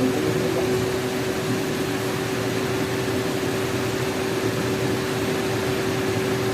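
A 2018 Nissan X-Trail engine idling steadily under the open hood, with a constant whirring hum that holds one tone. The engine is running so the fresh coolant circulates while air is bled from the cooling system.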